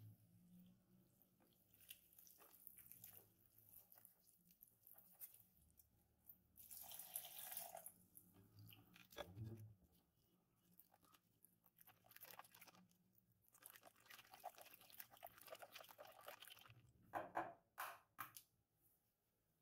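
Faint, irregular wet squelching and scraping of a silicone whisk stirring flour, yeast and liquid into a batter in a glass bowl, with a few short knocks near the end.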